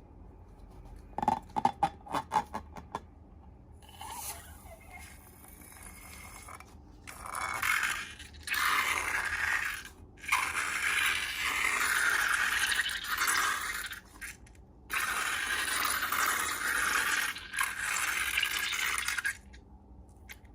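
Slime-making handling sounds: a quick run of sharp clicks, then long stretches of scraping hiss broken by a few short pauses.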